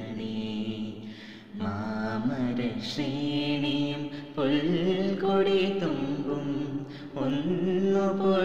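A teenage boy and girl singing a slow melody together in long held notes, in several phrases with short breaks between them.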